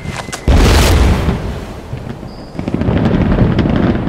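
Fireworks going off: a loud boom about half a second in that fades over a second or so, then a second, longer burst with crackling from nearly three seconds in.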